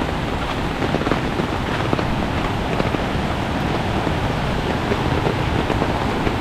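Heavy rain falling steadily as a dense rushing hiss, with scattered drops tapping close by.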